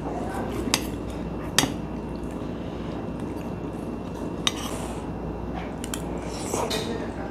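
Metal spoon clinking and scraping against a stainless steel bowl while eating, a few separate sharp clinks.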